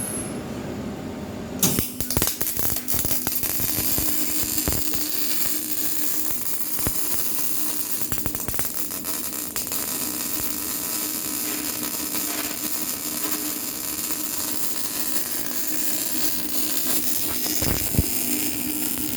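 MIG welding arc from a Weldteco MIG 270F CO2 welder, struck about two seconds in and then crackling and sizzling steadily, with a steady hum underneath.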